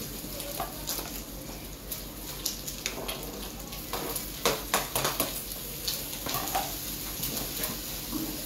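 Liver and onions frying in a pan: a steady sizzle with crackles. About four to five seconds in, the crackling and scraping grow as diced tomato is tipped from a plastic cutting board into the pan.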